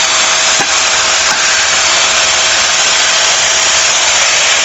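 HiKiNS corded stick vacuum cleaner running steadily, a loud even rush of motor and airflow with a faint steady hum, as it sucks up dry leaves.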